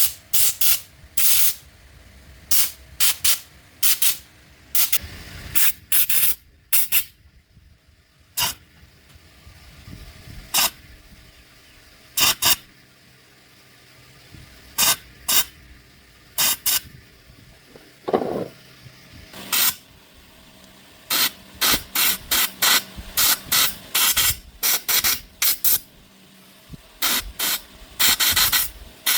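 Repeated short bursts of hissing spray, each lasting a fraction of a second, some single and some in quick clusters, with a brief falling squeak about 18 seconds in.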